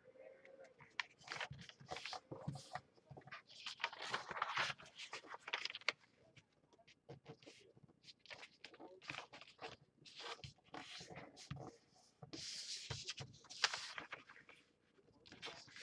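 A sheet of origami paper rustling and crinkling as it is folded by hand and the folds are pressed flat, in irregular spells of crackling and sliding rustle with short pauses between them.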